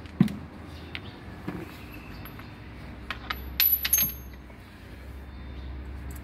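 Loose metal tools and parts clinking and knocking: a heavy knock just after the start, a few lighter clicks, then a quick cluster of metallic clinks with a short high ring about three to four seconds in.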